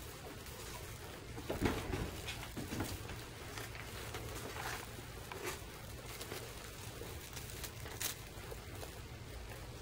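Kittens playing: faint scattered taps, scuffles and rustles of small paws and toys, the loudest cluster about two seconds in, over a low steady hum.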